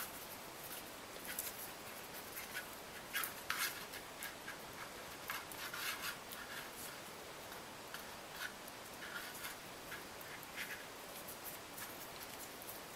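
Faint, irregular rubbing and rustling as floral tape is wound around the wire wreath frame and the wreath is bent and handled in the fingers.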